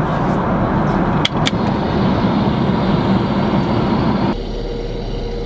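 Steady in-flight airliner cabin noise, an even low rush of engines and airflow, with two sharp clicks about a second and a half in as the seat's motorized minibar is opened. The rush turns quieter and duller near the end.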